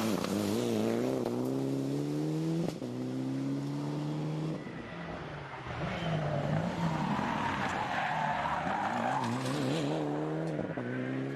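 Mitsubishi Lancer Evolution rally car's turbocharged four-cylinder engine revving hard as it accelerates through the gears. The pitch climbs and breaks at each upshift. There is tyre noise for a few seconds past the middle.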